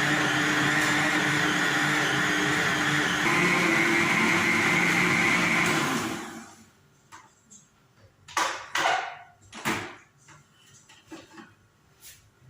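Electric mixer motor running steadily while kneading chapati dough, its tone shifting slightly about three seconds in, then winding down and stopping about halfway through. A few short knocks and clatters follow in the quiet.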